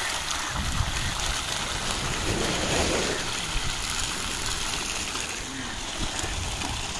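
Wind buffeting the microphone over the steady wash of surf on a beach, with faint voices in the background.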